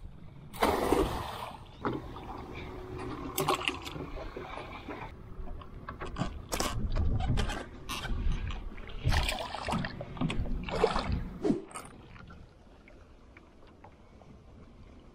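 Cast net being thrown and hauled back into a small skiff: irregular splashing and dripping water, with knocks and rattles of the net and its lead weights against the hull.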